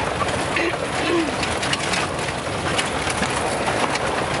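Steady road and wind noise of a moving car, with a couple of short, low hoot-like sounds about a second in.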